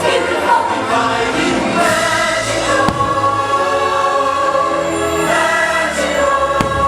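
Fireworks show soundtrack: choir singing sustained chords over orchestral music, with two short sharp pops, about three seconds in and near the end.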